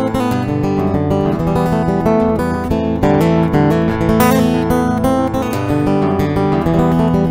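Guitar music: a guitar playing plucked notes and chords.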